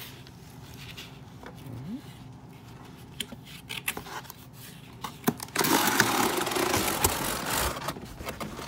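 Cardboard scraping and rubbing as an inner cardboard box is slid out of its outer packaging box: a few soft handling taps, then a loud rustling slide from about five and a half seconds in, lasting a couple of seconds.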